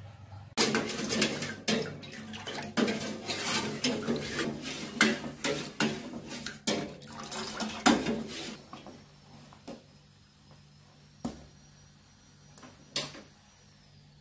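A ladle stirring a thin corn pudding mixture in a stainless steel pot, with liquid sloshing and rapid scraping and knocks against the pot. The stirring stops about two thirds of the way in, leaving a few single knocks.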